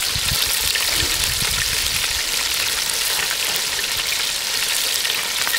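Rabbit pieces frying in two cast iron Dutch ovens over hot coals: a steady sizzling hiss with fine crackling throughout.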